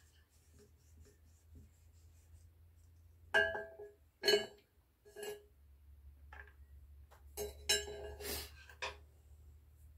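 Small clay-carving tools clinking as they are picked up and set down on the pottery wheel head: a few separate sharp clinks a few seconds in, then a quick cluster of them near the end, over a low steady hum.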